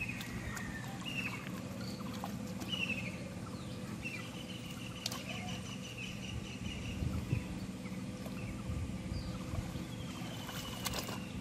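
A steady low motor drone with birds calling over it in short falling chirps and, near the middle, a quick trill of repeated notes.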